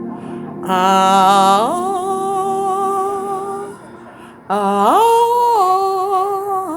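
A woman yawning aloud twice. Each yawn starts with a breathy intake, its voice sweeps up in pitch and then holds, before trailing off.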